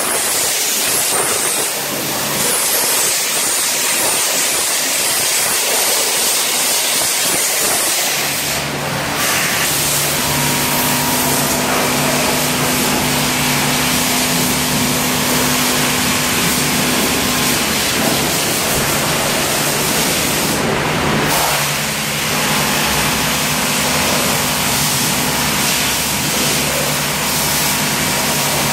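Dry-fog machine spraying through its hand-held nozzle: a steady loud hiss. About a third of the way in a motor hum with a few steady tones joins it, and the hiss breaks off briefly twice.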